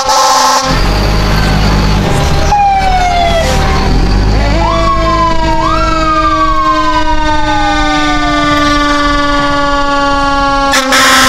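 Fire engine siren sounding as the truck passes. It winds up sharply twice, about four and a half and six seconds in, then slowly winds down over a steady siren tone, with the truck's engine running low underneath. There are short loud blasts at the start and near the end.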